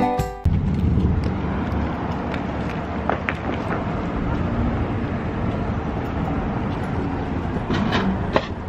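Strumming guitar music cuts off about half a second in, then wind rumbles on the microphone over outdoor traffic noise.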